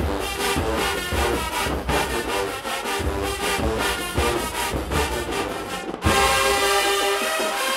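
Marching band brass and drums playing a hip-hop arrangement: a steady heavy drum beat under horn lines, then about six seconds in the drums drop away and the horns come in louder on held chords.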